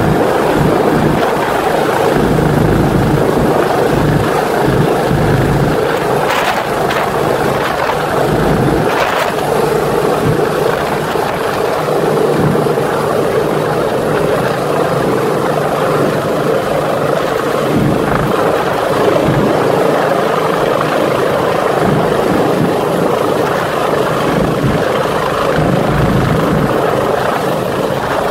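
Rescue helicopter hovering close overhead: a loud, steady rotor and turbine noise that keeps on without a break while a rescuer and a stretcher are winched up on its cable.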